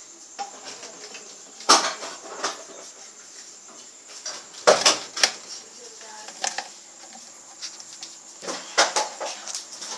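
A few sharp knocks and clatters, the loudest about two seconds in and around five seconds in, with more near the end.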